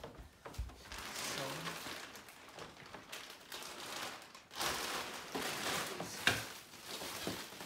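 Rustling and handling noises as the bumper parts and their packaging are moved about, with a sharp knock about six seconds in.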